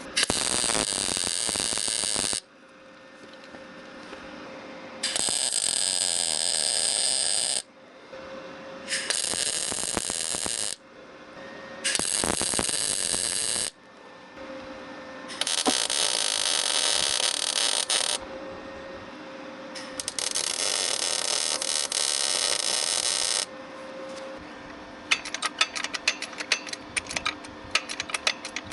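MIG welder laying a series of short weld runs on car body sheet metal: six bursts of steady crackling hiss, each a few seconds long, starting and stopping abruptly, with the welder's steady hum in between. Near the end comes a quick run of short sharp crackles, like rapid tack or spot welds.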